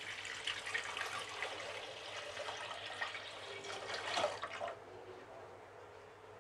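Boiled milk pouring in a steady stream from a plastic jug into a stainless steel pot of ghee-fried rice, splashing. The pour stops about four and a half seconds in.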